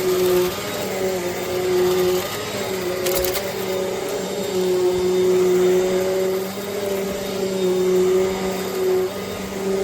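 Vacuum cleaner running: a steady motor hum over a rush of air, its pitch wavering slightly as it works, with a brief click about three seconds in.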